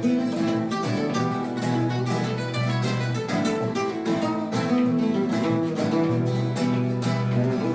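Instrumental music with quick plucked string notes, steady throughout.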